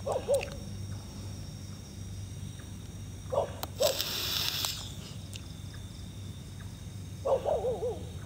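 An owl hooting at night: single short calls near the start and a little past three seconds in, then a quick run of wavering notes near the end, over a steady high insect chorus. A brief hiss sounds about four seconds in.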